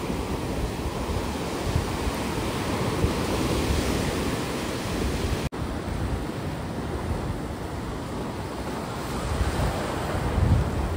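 Sea surf breaking and washing up the sand, with wind rumbling on the microphone. The sound drops out for an instant about halfway through, and a louder low surge comes near the end.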